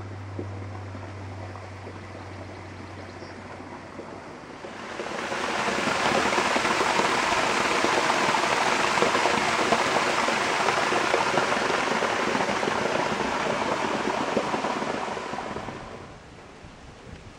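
Water rushing steadily, fading in about four seconds in and fading away near the end. A low steady hum is heard before it.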